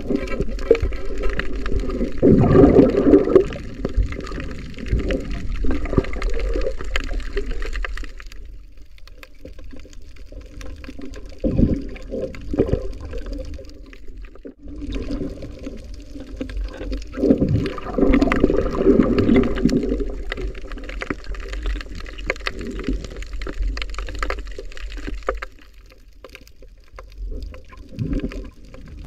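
Water rushing and gurgling around an underwater camera as a diver swims, in two long stretches with a quieter gap in the middle.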